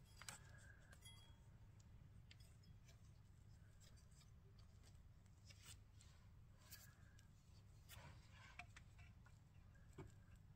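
Near silence: a faint low hum with scattered faint clicks and rustles of handling.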